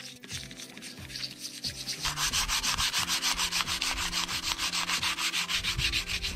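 Sandpaper rubbed back and forth by hand over the gasket face of an air-cooled engine's finned cylinder head, cleaning the mating surface. It is light at first, then from about two seconds in it turns into quick, regular strokes.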